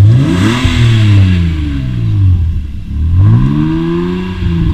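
A car engine revved twice just after starting: each time the pitch climbs quickly and then slowly falls back, first about half a second in and again about three seconds in.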